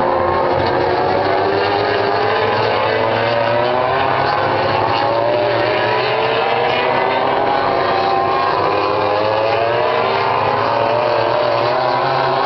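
Several MotoGP racing motorcycles running at high revs together, their engine notes overlapping and climbing steadily in pitch, falling back at each gear change and climbing again as the bikes accelerate.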